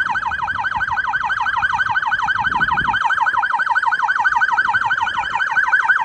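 Police car siren sounding a fast yelp, its pitch sweeping up and down about seven times a second.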